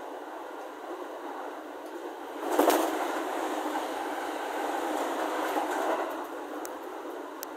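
Running noise of an E231 series commuter train heard from inside the passenger car: a steady rumble of wheels on rail. About two and a half seconds in it swells suddenly and stays louder for a few seconds before easing back.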